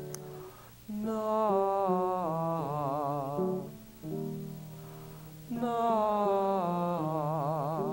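A man's voice singing a long, sustained 'na' twice as a choral warm-up, each note held about two and a half seconds with a wavering vibrato. Steady piano notes sound between the two sung notes.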